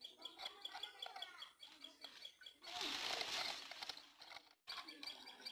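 Birds chirping in the background, with a noisy rustle lasting about a second near the middle as scissors cut through a plastic bottle.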